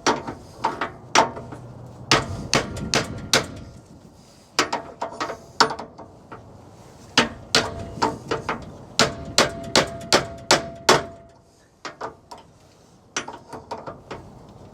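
Repeated metal-on-metal hammer blows in clusters of several quick strikes, some leaving a short metallic ring, with a pause near the end before a few lighter hits. The hammer is driving a heat-seized go-kart centrifugal clutch off the engine's crankshaft; the clutch got red hot and cooked itself onto the shaft.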